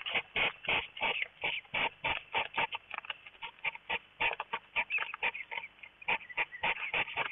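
Hedgehogs in mating season, snorting rapidly in short, noisy huffs, about four a second. This is courtship snorting, made mostly by the female as the pair circle each other.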